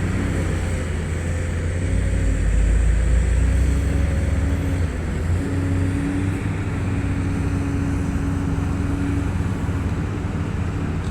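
Komatsu PC850 excavator's diesel engine working under load, a steady low drone that swells louder about two seconds in. A steady higher tone runs over it from about three to nine seconds in.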